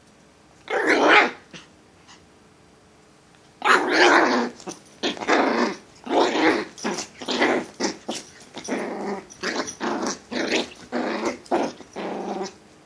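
Malshi puppy play-growling while attacking feet: one growl about a second in, then after a pause a run of short growls, about one or two a second, to the end.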